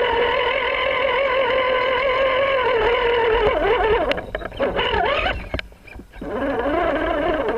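RC rock crawler's motor and gearbox whining as it climbs a boulder, the pitch wavering with the throttle. About halfway through the pitch swings up and down, the whine nearly drops out briefly, then picks up again at a lower pitch.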